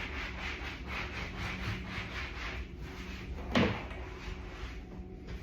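A towel rubbing over a shampoo bowl and chair in quick back-and-forth strokes, wiping them down after a disinfectant spray. About three and a half seconds in comes one louder squeak that falls in pitch.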